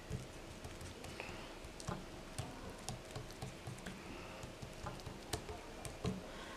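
Fingers patting and pressing oiled msemen dough thin against a glazed clay bowl: faint, irregular soft taps and pats.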